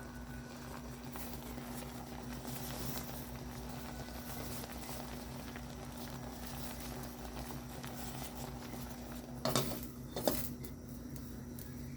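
A pot of cassava simmering on the boil, a soft steady bubbling and crackle over a low hum. Near the end, two brief clanks of metal against the pot.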